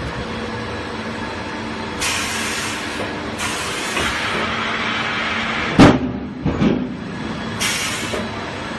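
Veneer peeling line machinery running steadily, with three separate bursts of hissing. A loud knock comes about six seconds in, followed by a couple of smaller knocks.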